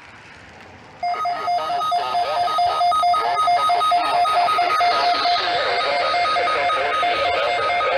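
A pulsed two-tone electronic alert tone starts abruptly about a second in, beeping about four times a second over a hissy background: the attention signal of an emergency alert broadcast.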